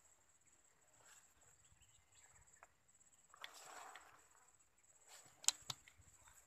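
Faint, steady high-pitched insect chirring, with a brief rustle partway through and two sharp clicks close together near the end.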